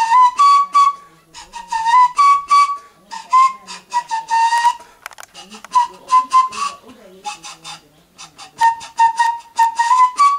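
Handmade bamboo flute played in short phrases of separate, breathy notes. The notes move between a few close pitches, with brief pauses between phrases.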